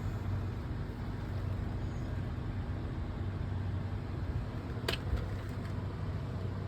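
Steady low mechanical hum with one sharp click about five seconds in.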